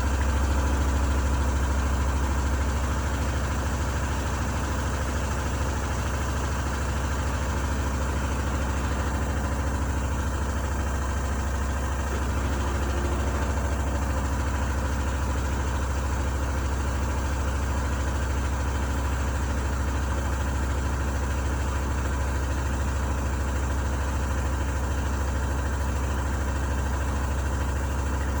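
Gorenje washing machine running with a steady low hum and vibration.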